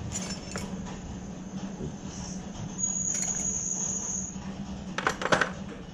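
Steel wrenches clinking against each other and the metal drawer of a tool cabinet as they are sorted into place, with a few clinks near the start and a louder cluster near the end. A thin, high, steady whine sounds for about a second and a half in the middle, over a low steady hum.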